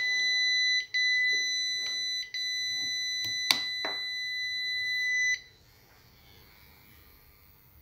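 Solar inverter's fault beeper sounding a steady high-pitched beep with two short breaks, the warning that no battery is connected. Two sharp clicks come about three and a half seconds in, and the beep cuts off suddenly a little after five seconds.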